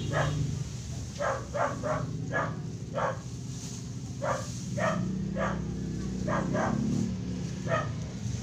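A dog barking repeatedly: about a dozen short barks, some coming in quick runs of two or three.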